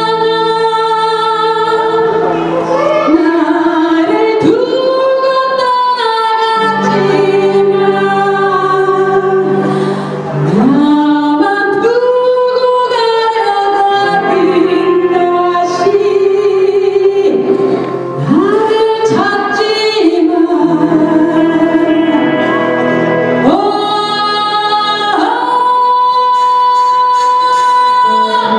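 Live pop band playing through a PA: a woman singing lead over keyboard, electric guitar, bass guitar and drums, with several long held sung notes.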